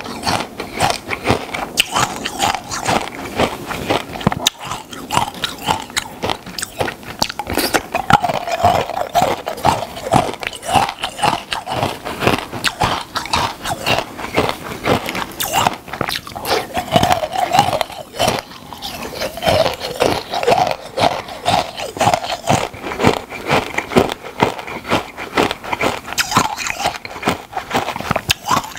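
Close-miked crunching and chewing of icicles: rapid, irregular cracks and crackles of ice breaking between the teeth, bite after bite.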